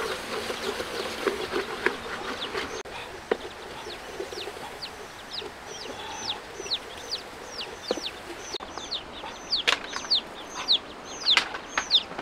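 Sauce sizzling and bubbling in a wok as a wooden spatula stirs it, for about the first three seconds. Then a bird peeps over and over, short high calls that slide downward, about two a second, with a few sharp knocks near the end.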